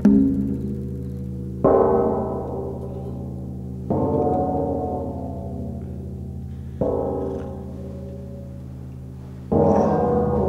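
Film score: five struck, ringing chords, each fading slowly before the next, over a steady low drone.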